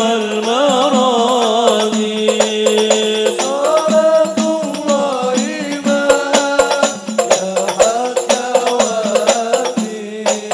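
Men's group singing an Arabic shalawat devotional song into microphones: an ornamented, wavering lead voice with others holding notes beneath. Hand-struck frame drums (rebana) play along, sparse at first and then a brisk, dense beat from about halfway in.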